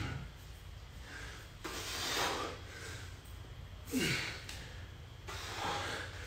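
A man breathing hard through exertion during push-ups, with three heavy breaths spaced about a second and a half to two seconds apart.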